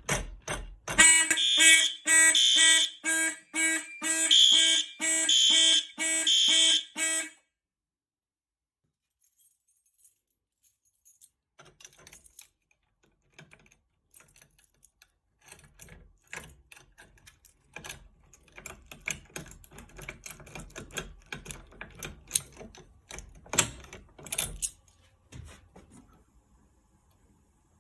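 Fire alarm horns sounding loudly in rapid, even on-off pulses after a pull station is activated, then cutting off abruptly about seven seconds in.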